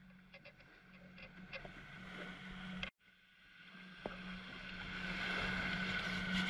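Boat motor running steadily under way, with a constant hum under a hiss of wind and water. The sound drops out for a moment about three seconds in and comes back louder.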